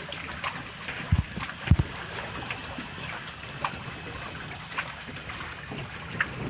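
Water trickling and lapping around a kayak, with scattered small clicks and two dull low thumps, one about a second in and one just under two seconds in.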